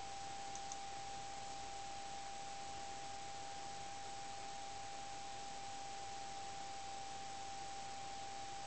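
A steady high-pitched tone held on one pitch over a constant hiss, with two faint ticks less than a second in; no sound from the feeding snake stands out.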